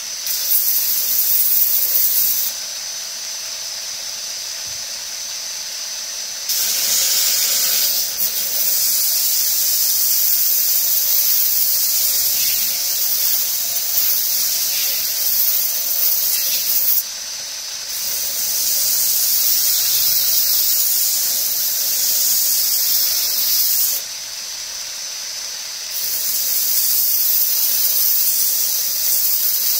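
Belt grinder running with a steady high whine, its abrasive belt hissing loudly each time the G10 knife scales are pressed against the contact wheel: four long grinding passes, with the bare belt running more quietly between them.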